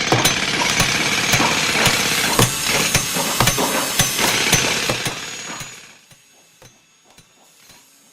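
Construction-site noise: heavy machinery running with irregular, repeated hammering impacts, a couple per second. About six seconds in it drops sharply, the high end most of all, leaving only faint knocks.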